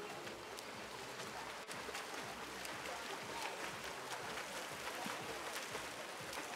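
Swimmers splashing through the water at freestyle, a steady wash of small splashes and slaps of water.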